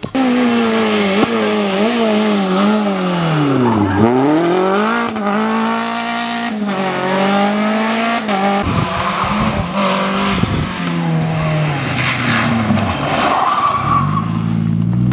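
Rally car engine revving hard, its pitch rising and falling with throttle and gear changes. The pitch dips sharply and climbs again about four seconds in, and the sound turns rougher, with a few sharp cracks, around nine to ten seconds in.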